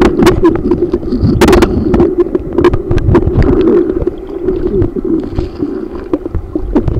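Muffled rumble and sloshing of creek water heard through a submerged phone microphone, with many short knocks and clicks throughout.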